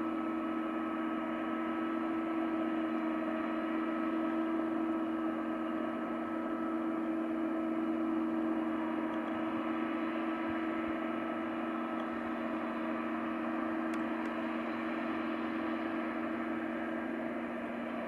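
Case IH Axial-Flow 9230 combine harvester running steadily: an even hum with several held tones over a rushing noise, with no change in pitch.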